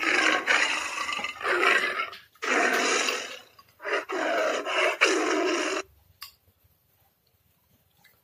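A man's loud, rough, drawn-out vocal sounds, four in a row, ending about six seconds in.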